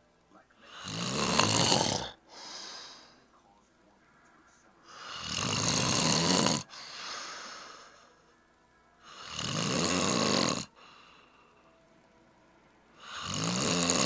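Person snoring loudly: four long snores about four seconds apart, the first two each followed by a softer breath.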